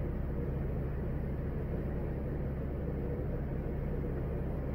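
Passenger boat's engine running steadily at cruising speed, a constant low drone with a hiss of water and air over it.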